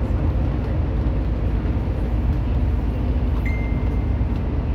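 Steady low rumble of engine and tyre noise inside the cabin of a vehicle cruising on an expressway. A thin, steady high tone comes in about three and a half seconds in and holds for just over a second.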